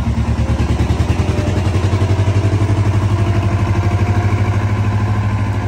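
A vehicle engine running steadily, with a fast, even pulse.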